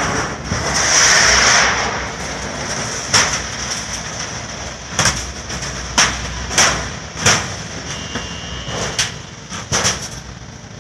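Roll-forming machine running as it presses corrugations into aluzinc-coated steel roofing sheet: a steady mechanical drone, a brief loud rushing noise about a second in, then irregular sharp metallic knocks as the sheet passes through the rollers.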